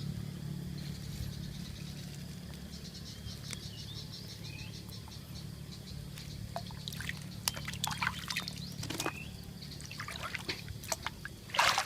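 Water trickling and splashing, with a rapid run of high chirps a few seconds in and scattered sharper splashes in the second half, over a steady low hum.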